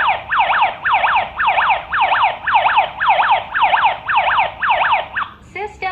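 KERUI W17 home alarm siren going off after zone 2 is triggered: a fast, loud falling whoop repeated about three times a second, stopping a little before the end.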